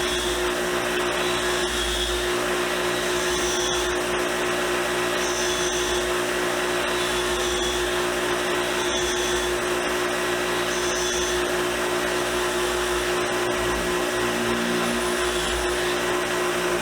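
Power tool motor running steadily, spinning a very soft steel wire wheel while a brass ferrule is held lightly against it, a constant hum under the hiss of the brushing.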